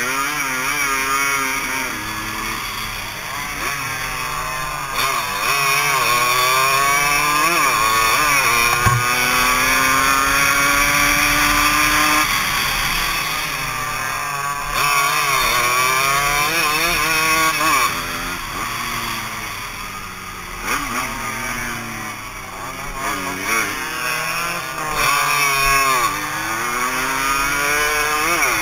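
Suzuki AX100 two-stroke single-cylinder race bike engine heard from on board at full throttle, its pitch climbing in repeated rising sweeps, briefly dropping at each gear change and falling away into corners.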